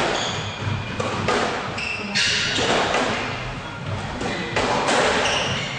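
Squash rally: a string of sharp cracks as the ball is struck by rackets and hits the walls, with short high squeaks of shoes on the wooden court floor between the shots.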